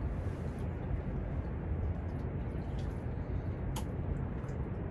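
Wind buffeting the microphone in a steady, uneven low rumble, with one brief click near the end.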